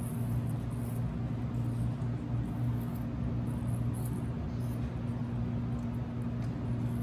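A steady low hum, with faint brief high-pitched flecks of sound scattered over it.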